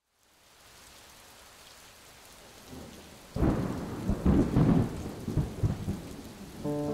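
Rain hiss fading in, then a loud rolling thunderclap with rumbling cracks from about halfway through.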